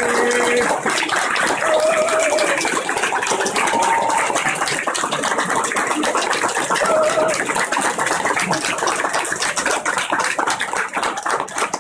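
Large audience in a lecture hall applauding steadily, a dense wash of many hands clapping that thins out near the end.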